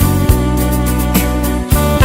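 Background music: an instrumental track with sustained notes over a steady bass, changing chords about every half second to second.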